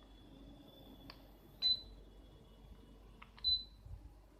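Two short high-pitched beeps from a Sharp split air conditioner's indoor unit, about two seconds apart, each coming shortly after a faint click. The beeps are the unit acknowledging remote-control commands.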